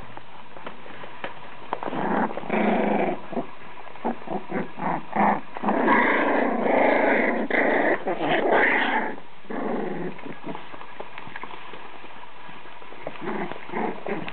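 Danish-Swedish farmdog puppies growling at each other in play, in a run of short bursts that start about two seconds in and are loudest in the middle, with scattered scratching and rustling from their paws on newspaper.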